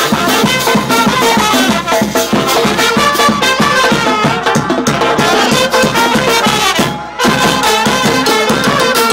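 Marching band playing live: trumpets and other brass over a fast beat on a bass drum and cymbal. The music drops out for a moment about seven seconds in, then comes back in.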